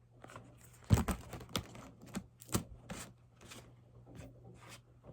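Irregular light clicks, taps and rustling, as of small objects being handled, with sharper clicks about a second in and about two and a half seconds in.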